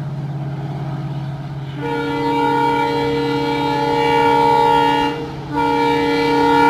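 An EMD diesel locomotive's air horn sounds two long blasts, the first beginning about two seconds in and the second following a brief gap about five seconds in. The engine's low drone runs underneath.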